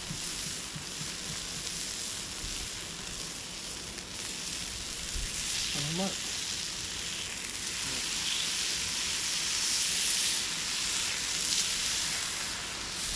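Yakiniku meat sizzling as it grills over a campfire, a steady crackling hiss that grows louder in the second half.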